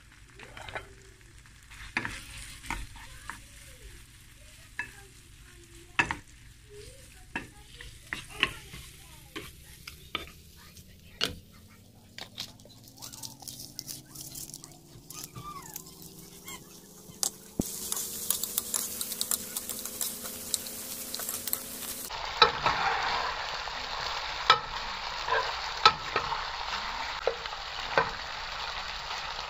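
Shrimp frying in oil in a nonstick pan while a spatula stirs them, knocking and scraping against the pan. The sizzle is faint at first and becomes a loud, steady hiss from about two-thirds of the way in, with the spatula's clicks over it. A faint tone slowly rises in pitch through the middle.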